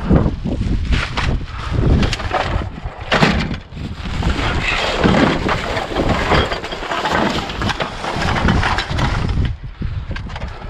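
Scrap and debris being shifted about in a dumpster: a run of sharp knocks and cracks over rustling clatter, with wind rumbling on the microphone.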